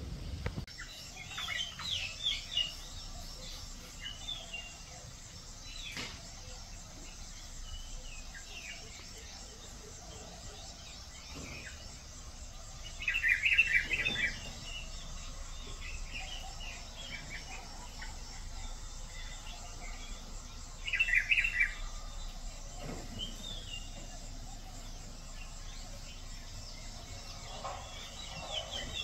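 Birds calling: scattered chirps, with loud bursts of chattering calls about two seconds in, around thirteen seconds in and again around twenty-one seconds in.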